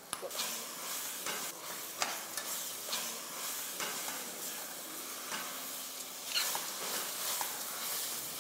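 A metal spoon stirring a thick mixture of roasted soybeans, sugar and condensed milk in an aluminium pot on the heat, with a steady sizzle and the spoon now and then clinking and scraping against the pot. The mixture is being cooked down to the setting point of soy rapadura.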